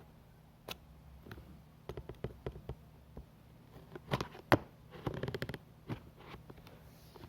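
Unboxing handling noise: hands working packaging, giving irregular taps, clicks and scrapes with a sharp snap about four and a half seconds in.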